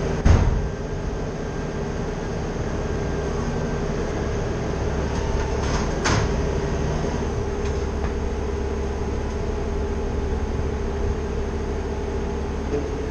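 Engine of heavy tree-service equipment running steadily. There is a sharp knock just after the start and a couple of lighter clicks about six seconds in.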